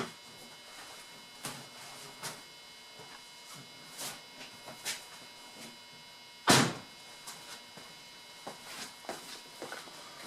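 Scattered clicks and knocks from the reassembled ignition switch and steering-lock housing of a 2007 Saab 9-3 as it is handled and worked with its key, with one louder knock about six and a half seconds in. A faint steady hum runs underneath.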